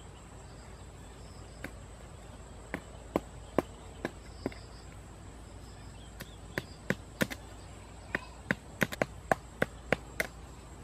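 Stone knocking on bamboo tubes: a series of sharp knocks, a few scattered ones first, then a quicker run of about two to three a second in the second half. Faint insect chirping underneath.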